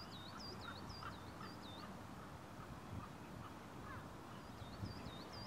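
A small songbird singing a run of quick, repeated high whistled notes, about four a second, alternating between a higher and a lower pitch; one run fades about two seconds in and a second run starts near the end. Faint low outdoor rumble underneath.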